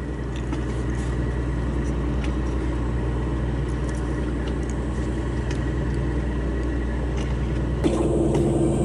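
A steady, low engine rumble with faint ticks over it; the sound shifts and grows a little louder near the end.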